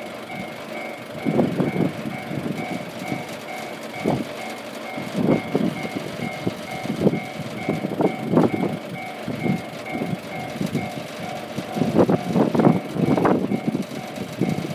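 Japanese level-crossing warning bell ringing in a steady, even pulse, with irregular low rumbling and clattering bursts under it, loudest near the end.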